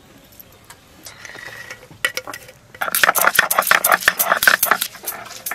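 A stone muller is rocked over chopped red onions on a flat stone grinding slab (shil-nora), crushing them with a dense run of crunching, scraping clicks. It comes in loudly about three seconds in, after a quieter stretch.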